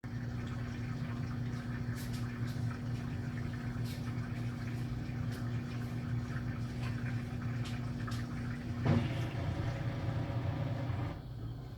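GE LSGE09E09M washer-dryer running: a steady hum with water noise and scattered light clicks. A steady tone stops with a knock about nine seconds in, and the higher sound falls away near the end.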